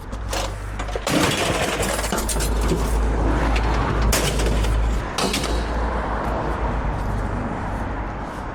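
Scrap metal clattering and banging as pieces are thrown onto a load, a rapid run of impacts over a few seconds, over a steady low rumble.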